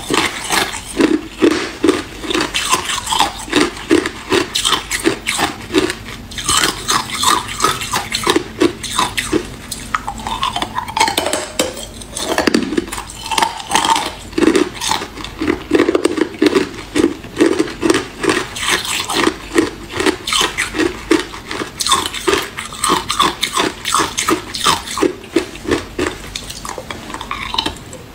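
Hard clear ice being crunched and chewed between the teeth: a continuous run of crisp cracks, several each second.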